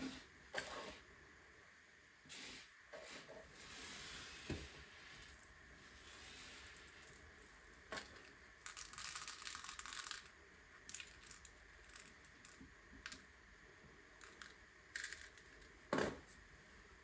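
Small plastic LEGO pieces being handled and pressed together: scattered sharp clicks with stretches of light plastic rustling, the loudest click near the end.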